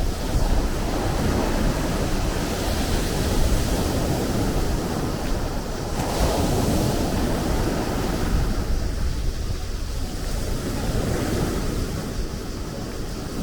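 Sea surf: waves breaking and washing in as a continuous rush that swells and eases every few seconds. Wind rumbles on the microphone underneath.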